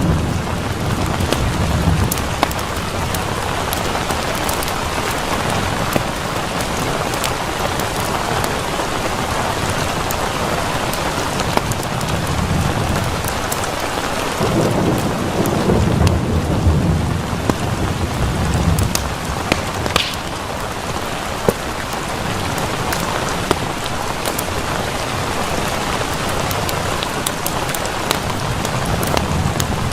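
Steady heavy rain, with a low thunder rumble near the start and a longer rolling rumble about halfway through. Scattered sharp clicks sound over the rain.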